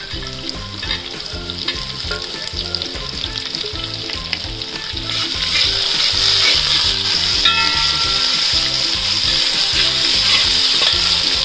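Sliced onions sizzling as they fry in hot oil in a wide metal uruli, stirred with a metal spatula that scrapes and taps the pan. The sizzle gets louder about five seconds in.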